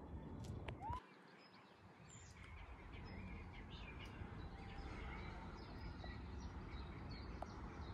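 Faint outdoor ambience: a low, steady rumble with a few faint bird chirps. The rumble drops out suddenly about a second in and builds back up over the next couple of seconds.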